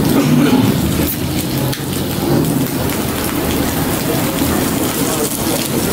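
Beef and hamburger patties sizzling on a charcoal grill: a steady hiss full of fine crackles.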